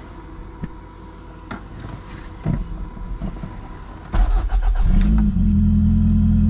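A few light clicks, then about four seconds in the 1989 Toyota MR2's engine cranks briefly, catches and settles into a steady idle.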